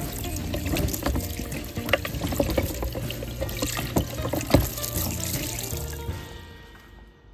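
Running water splashing over a hand-held object into a plastic bucket as the dish soap is rinsed off, with background music playing; both fade out near the end.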